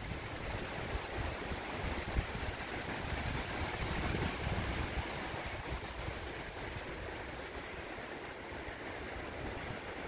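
Wind blowing through the trees, a steady rushing rustle of leaves that swells about four seconds in and then eases, with low buffets of wind on the microphone.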